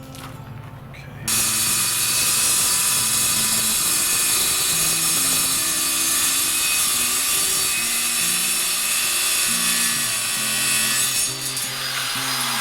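A power saw cutting, starting about a second in and running steadily with a whine until it eases off near the end, over background music.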